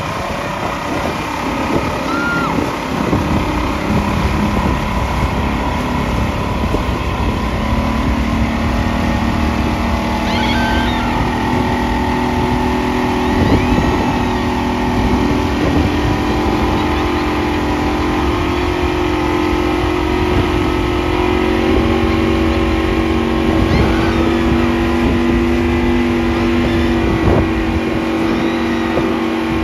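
Motorboat engine running at speed while towing a banana boat, with the rush of its churning wake. The engine note rises about eight seconds in and then holds steady.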